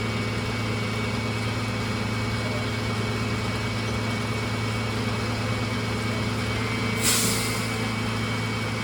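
Garbage truck's diesel engine idling steadily, with a short hiss of released air about seven seconds in, as from the truck's air brakes.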